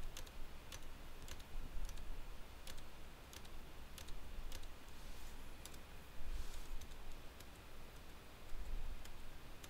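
Scattered single clicks of computer input at a desk, irregular, about one or two a second, over a low steady hum.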